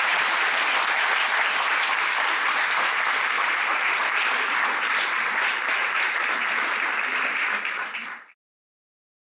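Audience applauding steadily; it cuts off suddenly a little after eight seconds in.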